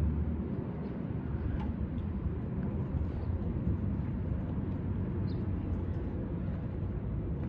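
Steady low outdoor rumble with a few faint, short high chirps.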